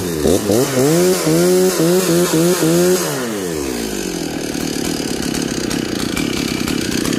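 Stihl 036 chainsaw's 61.5 cc two-stroke engine revved in several quick throttle blips, with the chain brake released so the chain spins. After about three seconds the revs fall away and it settles back to idle.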